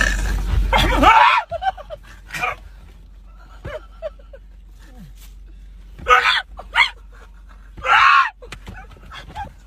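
Men's short startled shouts and cries inside a car, the loudest about six and eight seconds in, over a low steady hum.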